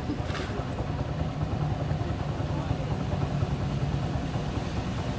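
A vehicle engine running steadily at idle: a low, even rumble.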